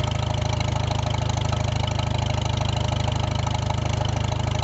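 A 1951 Farmall H tractor's four-cylinder gasoline engine running steadily, with an even, rapid exhaust beat from its upright muffler.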